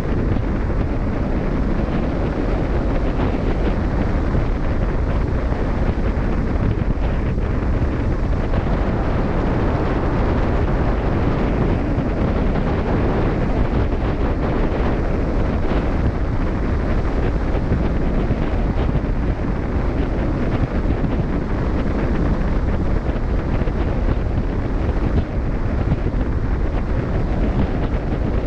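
Steady wind rushing over the microphone on a cruise ship at sea, with the wash of the open sea beneath it; an even, unbroken noise with no distinct events.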